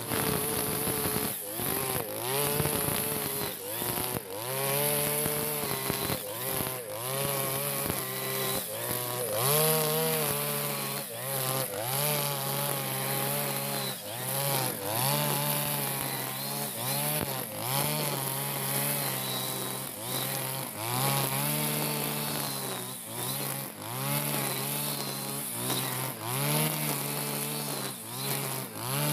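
Backpack brush cutter engine running at high revs, its pitch dipping and recovering about once a second as the cutting head sweeps through the grass and takes load. The engine is freshly serviced and pulling strongly.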